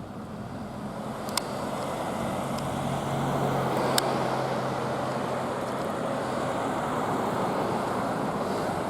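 Road traffic: a vehicle driving past on the street, its tyre and engine noise growing louder over the first few seconds and then holding steady, with a low engine hum in the middle.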